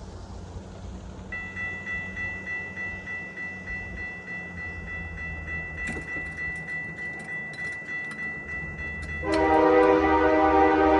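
Grade-crossing warning bell starts ringing about a second in, a steady high tone struck about three times a second. Near the end, the lead CN SD60 locomotive's multi-chime air horn sounds loudly for the crossing, drowning out the bell.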